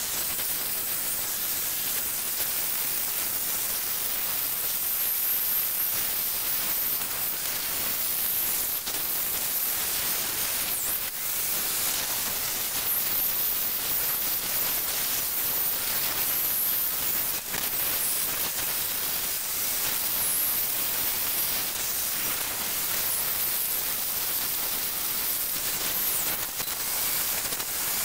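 Electric angle grinder with a thin cut-off disc cutting into the head of a steel rail: a steady, high hiss and whine of the disc biting the metal, easing briefly a couple of times.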